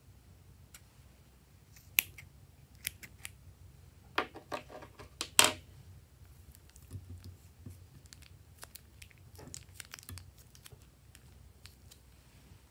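Thin plastic bags crinkling as they are handled, with a burst of quick crackles about four to five and a half seconds in, and scattered small clicks and taps.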